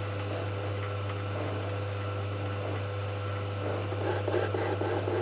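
Small metal lathe running with a steady motor hum. Near the end the cutting tool bites, adding a rhythmic chattering noise a few times a second as it skims metal.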